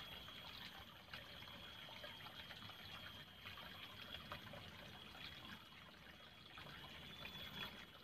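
Faint trickling of water in a small ditch, with a thin steady high-pitched tone behind it.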